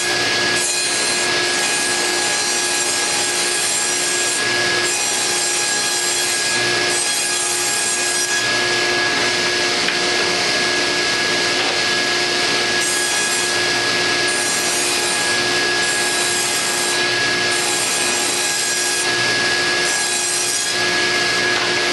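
Table saw running and cutting a rabbet along a length of wooden frame stock: a steady, loud hum-whine of motor and blade under the hiss of the cut, with the high hiss coming and going in stretches as the wood is fed.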